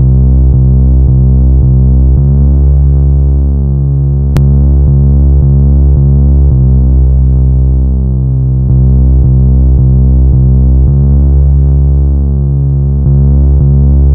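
Deep synthesizer music: loud, sustained low tones that shift to a new chord about every two seconds.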